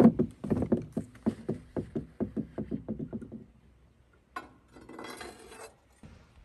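Hand-tool work on a forklift wheel: a sharp metallic knock, then a fast run of even clicks that fades out over about three seconds. A short scraping rustle follows about four and a half seconds in.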